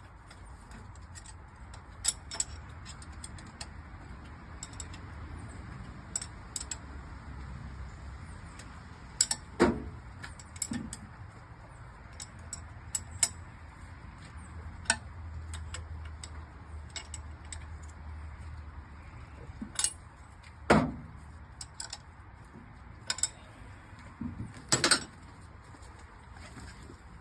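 Scattered sharp metallic clinks and clanks of tools and parts being handled, a few louder knocks among them, over a faint low hum.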